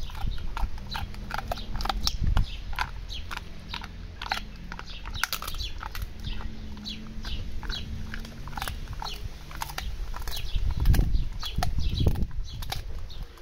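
Bull terrier chewing a dried beef trachea chew: a steady run of crisp crunches, a few each second. Near the end come a couple of louder low rumbles.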